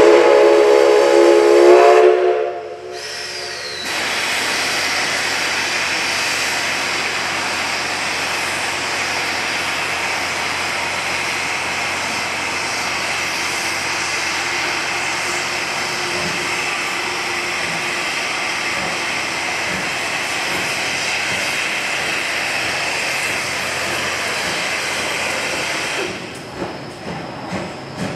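Steam whistle of a D51 steam locomotive sounding one loud blast of about two seconds, followed after a short pause by a long, steady hiss of escaping steam that turns uneven near the end.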